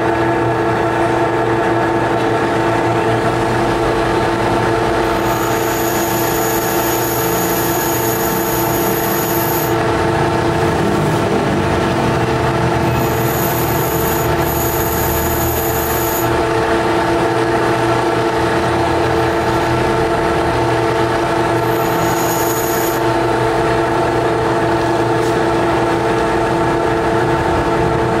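Lathe running steadily: a constant machine drone made of several steady tones.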